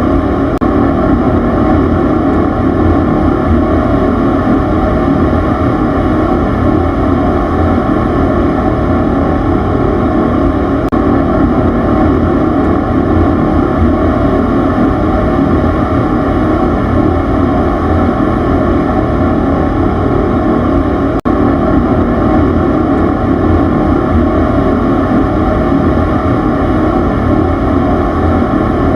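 Steady, loud machine rumble: a dense low drone that holds unchanged throughout. There is a split-second dropout about 21 seconds in.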